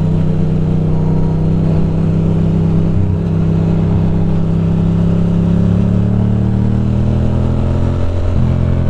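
Ducati Monster's L-twin engine running under way at a steady road speed, its note rising slightly near the end, with a brief break about eight seconds in.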